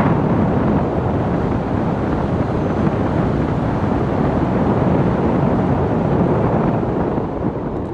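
Loud, steady wind buffeting on the microphone.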